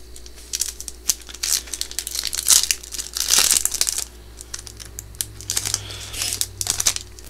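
Foil wrapper of a Yu-Gi-Oh Mega Tin booster pack crinkling as it is handled and torn open, in short irregular spells of crackling that are loudest about halfway through.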